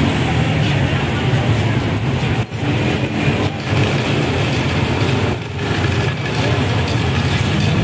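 An engine running steadily with a constant low hum, the kind of motor that drives or powers a procession float.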